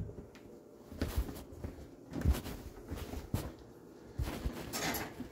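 Handling noise from a phone being carried and moved about: irregular soft knocks and rustling, a few every second or so.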